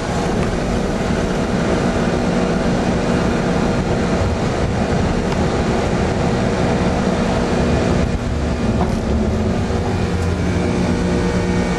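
Airbus A300 during takeoff, heard inside the flight deck: a loud, steady rumble of the engines and rushing air, with a constant droning hum underneath.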